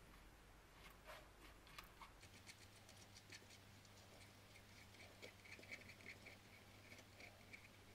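Faint clicking and scratching of ceramic insulating beads on a wire being handled and pushed into a metal hotplate housing, a quick run of small ticks that stops near the end.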